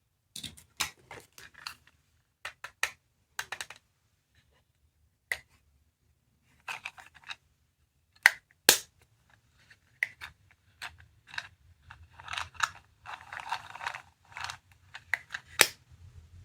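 Small plastic capsule toys being handled: irregular sharp plastic clicks and taps, with a short rustling stretch near the end.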